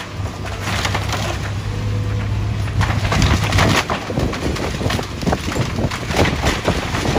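Case excavator's diesel engine running while its grapple crushes and splinters the wooden framing of an old house: a run of sharp cracks and crunches of breaking timber that gets busier about three seconds in.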